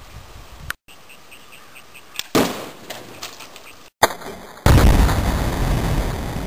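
A sharp bang about two seconds in, then a louder bang about four and a half seconds in as a plastic pop bottle pumped full of compressed air bursts when hit by a crossbow arrow. The second bang is sudden and its noise dies away slowly.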